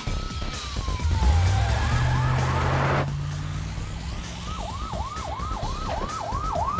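Police car siren: a wail that falls away in the first couple of seconds, then a fast yelp of rapid up-and-down sweeps, about three a second, over a low vehicle rumble.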